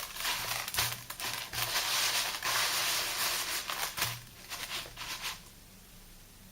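Gritty scratching and rubbing of thick soap lather worked up with sea salt, in uneven strokes that stop about five seconds in.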